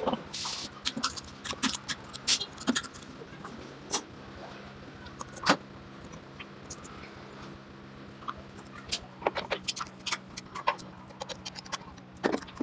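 Metal parts of a Vespa clutch assembly being handled and fitted by hand, making scattered, irregular sharp clicks and clinks over a faint steady low hum.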